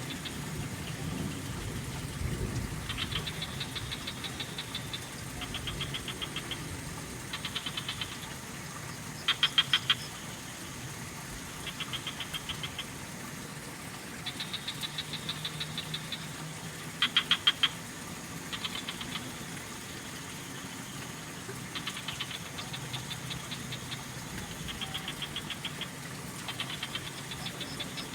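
Frogs calling in short trills of rapid pulses, one after another every second or two, with a couple of louder, nearer calls among them, over a low steady rush of trickling water.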